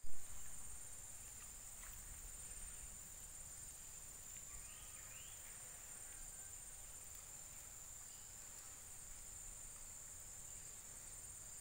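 Steady high-pitched drone of insects, with a brief bump at the very start and a couple of faint chirps about five seconds in.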